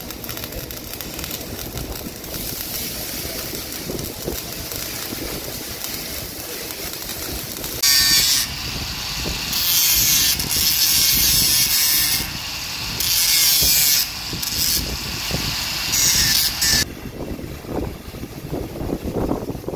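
Handheld angle grinder grinding the weld around a bronze bushing on a forklift steering axle arm. It runs at a lower level at first, then from about eight seconds in bites into the metal in four loud, harsh passes of one to three seconds each, easing off between them.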